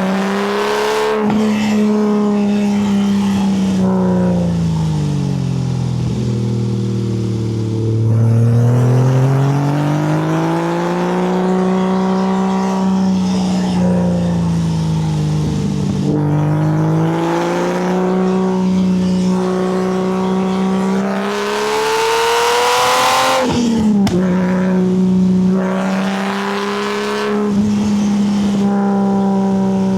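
Porsche 911 (964) air-cooled flat-six engine on a full custom exhaust, driven hard, its note rising and falling with the throttle. The pitch sinks low about eight seconds in, then climbs steadily to a loud, high peak past twenty seconds and drops sharply at a shift before holding steady.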